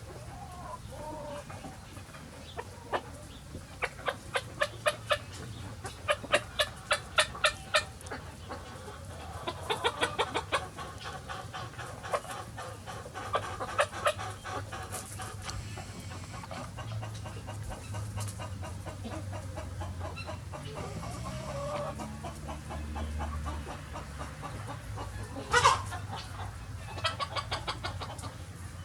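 Free-ranging chickens clucking, with several runs of quick, evenly spaced clucks a few seconds in and a louder single call near the end.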